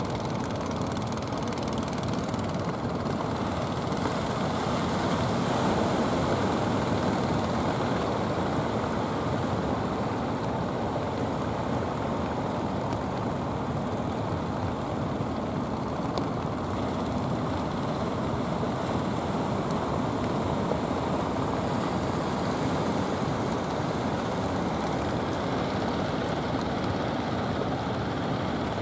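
Steady rushing noise of wind and surf on the open sea, even throughout without breaks.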